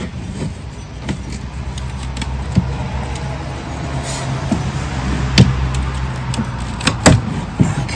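Knocks and small clatter of a metal antique radio chassis being handled on a bench, two sharper knocks in the second half, over a steady low hum.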